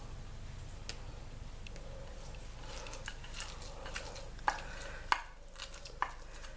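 Hands squeezing and crushing basil leaves with grated shallot and oil: soft, wet crackling that gets busier about halfway through, with three sharp clicks in the second half.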